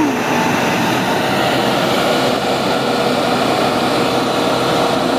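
Heavy Mitsubishi Fuso Super Great truck's diesel engine running loud and steady under full load, straining on a steep climb it cannot make.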